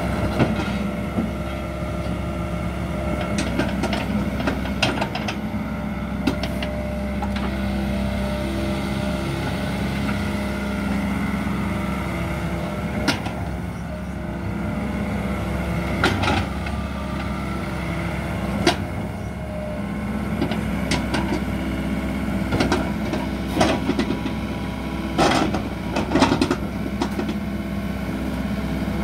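2012 John Deere 85D midi excavator's diesel engine running steadily under hydraulic load as the machine swings and works its boom, with a dozen or so sharp metallic clanks from the machine scattered through, several of them close together near the end.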